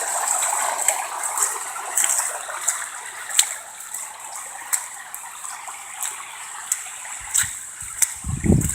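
Floodwater rushing along a street, a steady gushing noise broken by frequent sharp little splashes and ticks, with a brief low thud near the end.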